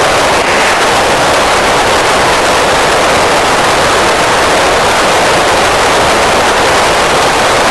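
Steady FM receiver hiss through the speaker of an Icom ID-5100 transceiver tuned to the PO-101 satellite's downlink, an open channel with no station talking.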